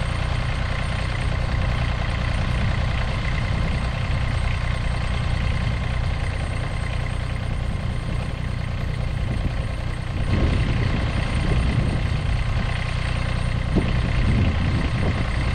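Massey Ferguson GC2300 sub-compact tractor's three-cylinder diesel idling steadily. It gets a little louder and uneven in the last few seconds.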